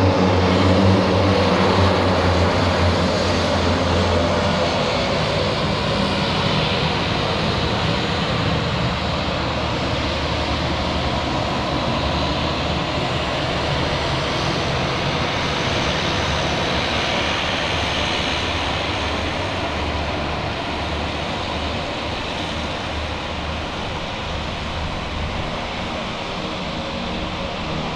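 Small turboprop airplane's engines and propellers running loud as it rolls up the runway after landing and taxis onto the apron. It is loudest at the start, with a low hum, and grows gradually quieter.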